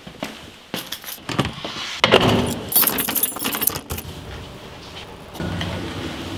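A bunch of keys jangling and clinking in several short bursts, with a steadier noise starting near the end.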